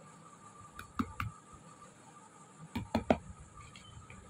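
Wire whisk gently folding cake batter in a bowl: a few sharp clicks of the wires against the bowl, two about a second in and a cluster around three seconds.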